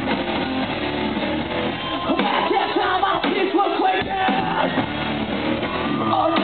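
Live rock band playing loudly, with electric guitars and drums, and a voice singing or shouting over them from about two seconds in.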